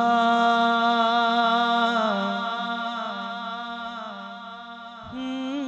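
A man's voice holding one long note of an unaccompanied naat, slowly fading, then starting a new, higher note about five seconds in.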